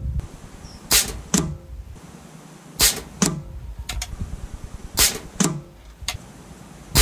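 .177 Air Arms XTi-50 pre-charged pneumatic air rifle firing a group of shots about two seconds apart: three shots, then a fourth at the very end. Each sharp shot is followed about half a second later by a second, duller knock.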